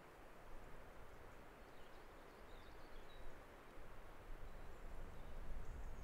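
Wind blowing across the mountainside, with a low rumble of gusts on the microphone that grows stronger toward the end. A few faint, high bird chirps sound over it.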